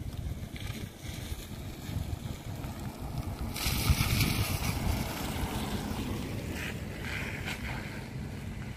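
Wind buffeting the microphone as a steady low rumble, with a car driving past on wet asphalt about three and a half seconds in: a loud hiss of tyres on the wet surface that fades over a second or two.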